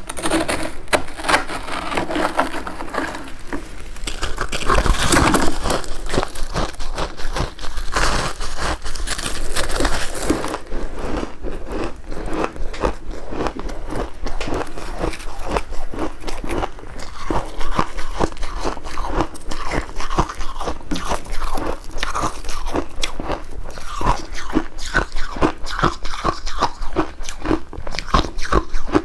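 A person biting and chewing ice with syrup, a continuous run of close, irregular crunches. The crunches are crisper in the first ten seconds or so, then duller chewing.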